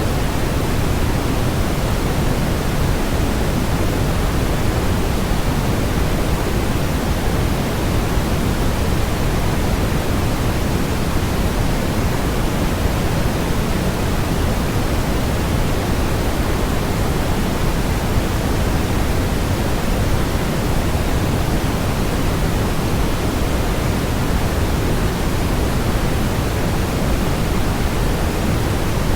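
Steady, generated white noise: a constant, unchanging hiss with no events in it, fuller in the bass than in the treble.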